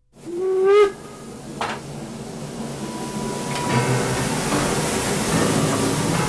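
Steam locomotive 18 201 gives a short whistle blast, followed by a sharp burst of steam. A steady hiss of escaping steam then grows louder.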